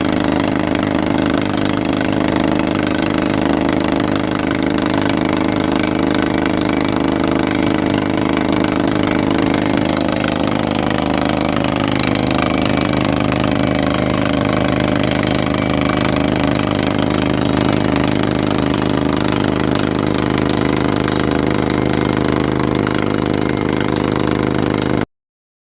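A 2-ton CAT mini excavator's engine running steadily under load, driving an EX57 hydraulic drill attachment as it drills. Partway through, one tone in the sound slides down in pitch, and the sound cuts off suddenly near the end.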